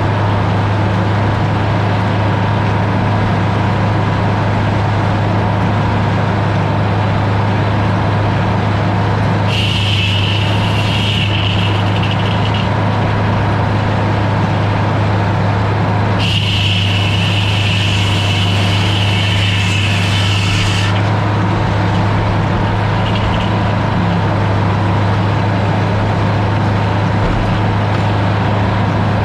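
A heavy engine running steadily at one speed. Twice it is joined by a high, hissing whine, first for about three seconds, then for about five.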